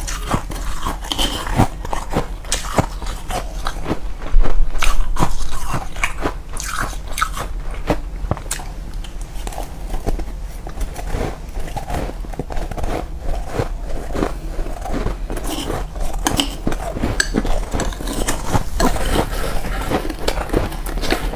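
A person biting and chewing powdery freezer frost: a continuous run of crisp crunches in the mouth, with a louder stretch about four seconds in.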